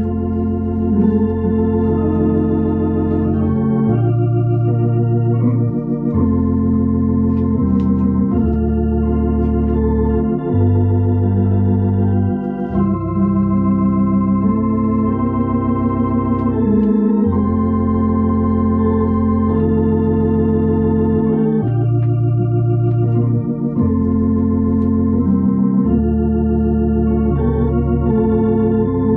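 Console organ playing slow, sustained chords over held bass notes that change every couple of seconds, the tones wavering with a light vibrato.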